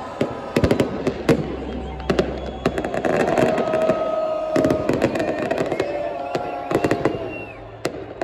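Fireworks going off in a stadium: many sharp, irregular bangs and crackles, over the steady noise of a large crowd.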